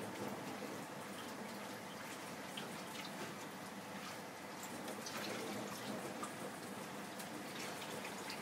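Chicken curry (tomato, onion and spice gravy) simmering in an open pan over a high flame, bubbling steadily with many small pops and spits from the surface.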